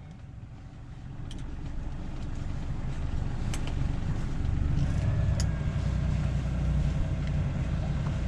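Sailboat's inboard diesel engine running with a steady low rumble that grows louder over the first few seconds, with a few faint clicks over it.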